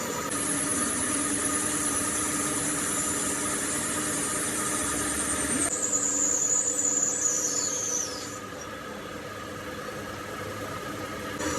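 Machine tool cutting steel: a steady machine hum with a high-pitched squeal from the cut, which slides down in pitch about seven to eight seconds in and stops, leaving the quieter hum of the running machine.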